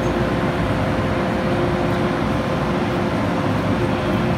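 Hong Kong MTR Tsuen Wan Line M-Train running at an underground station platform: a steady rumble with a faint steady hum.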